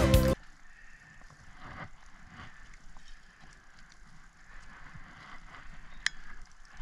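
Background music that cuts off abruptly a moment in, followed by faint outdoor ambience with soft rustling and handling noises and one sharp click near the end.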